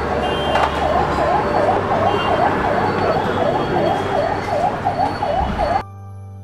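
Electronic siren rapidly sweeping down and up, about twice a second, over busy street noise. It cuts off suddenly near the end, giving way to soft keyboard music.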